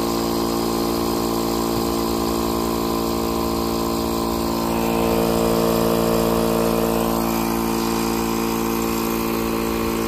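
Milwaukee M12 cordless compressor running with a steady, even hum, pumping air into a new underground gas line to pressurise it for an air test.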